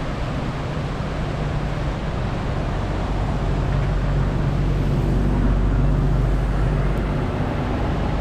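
Steady vehicle engine and road noise: a low engine hum under a constant rushing noise.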